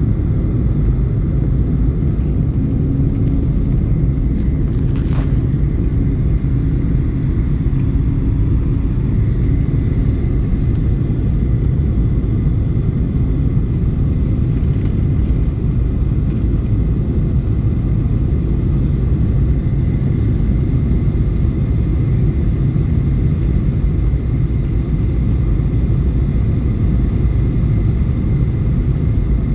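Steady cabin noise inside a jet airliner in flight: a constant low rumble of engines and rushing air, unchanging throughout.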